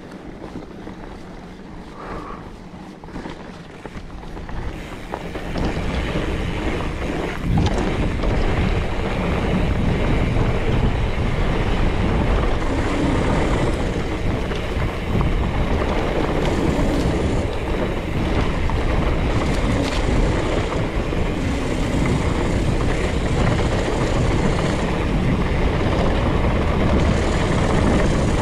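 Mountain bike descending a fast dirt downhill trail: wind rushing over the action camera's microphone mixed with tyre and frame rattle from the trail. It gets louder about five seconds in, with a single knock a couple of seconds later.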